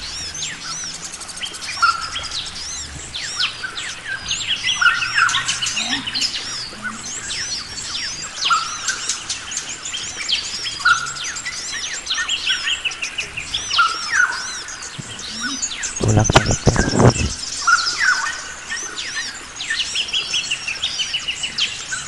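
Many forest birds calling and singing at once: chirps, rising and falling whistled notes, and one call repeated about every two seconds. About sixteen seconds in, a brief burst of low thumps and rumbling cuts across the birdsong.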